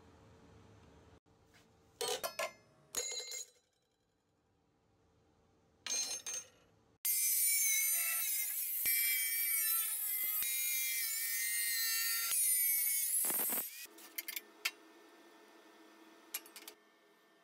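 Angle grinder with a thin cut-off disc slicing into stainless steel square tube: a loud, high, screeching run with ringing tones that starts abruptly about seven seconds in and stops about seven seconds later. A few short knocks come before the cut, and small clicks follow it.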